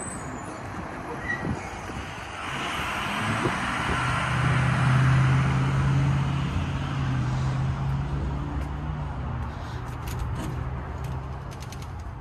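A motor vehicle passing by out of sight: engine hum and road noise swell about two and a half seconds in, are loudest around five seconds, then fade away. A few light clicks follow near the end.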